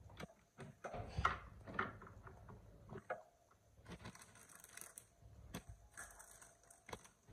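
Faint handling noises from bottle-feeding a baby monkey: scattered soft clicks and rustles, with a few sharper knocks about a second in and near three seconds.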